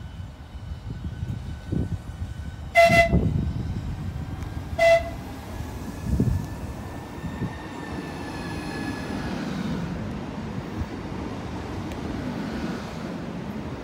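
Class 395 Javelin electric high-speed train sounding two short toots on its quiet depot whistle, about two seconds apart. It then pulls away with a whine from its electric traction equipment that rises in pitch as it gathers speed, over the rumble of wheels on rail.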